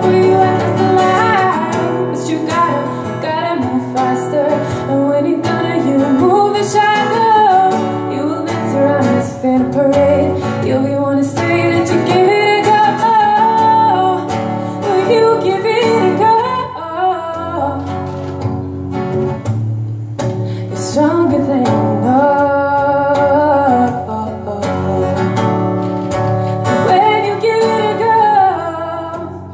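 A woman singing a song to her own acoustic guitar accompaniment, performed live.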